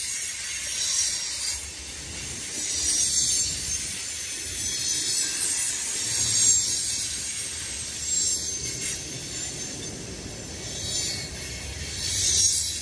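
Freight train of tank cars and covered hopper cars rolling past: steel wheels on the rail make a continuous high hiss over a faint low rumble, swelling and fading every second or two as the cars go by.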